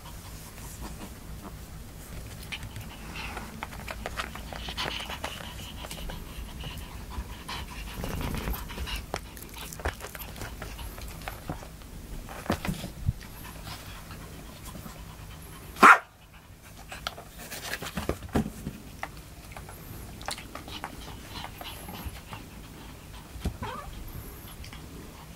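Chihuahua panting, with a few short barks scattered through; one bark about two-thirds of the way through is far louder and sharper than the rest.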